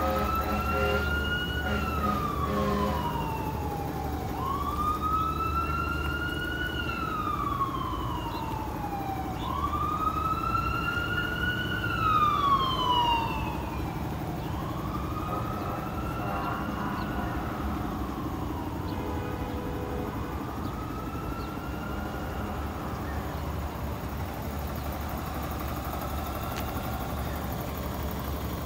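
Emergency vehicle siren wailing, its pitch rising and falling about once every five seconds, loudest a little under halfway through and then fading away. A steady low rumble runs underneath.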